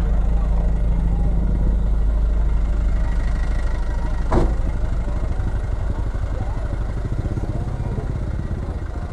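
Fire truck engine idling with a low, steady rumble that grows steadily fainter.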